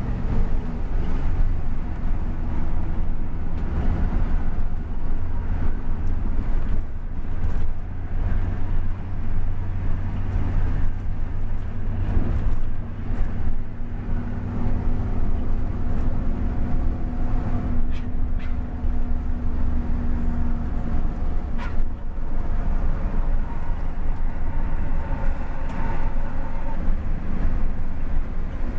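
Engine and road noise of a moving bus heard from inside its cabin: a steady low rumble at highway speed, with a couple of faint clicks past the middle.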